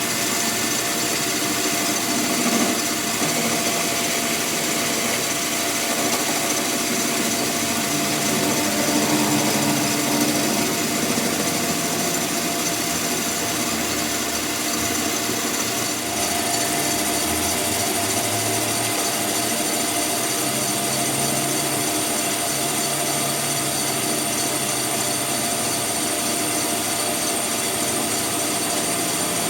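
A power tool running steadily, with a high steady whine coming in about halfway through.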